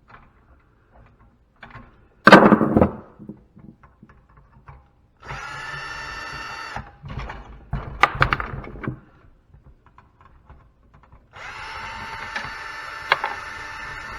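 A power drill/driver runs twice, briefly about five seconds in and for about three seconds near the end, turning out fasteners. A loud clatter about two seconds in and a few sharp knocks in between.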